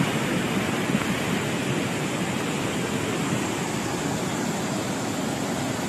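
Fast-flowing flash-flood water rushing in a steady, heavy wash of noise.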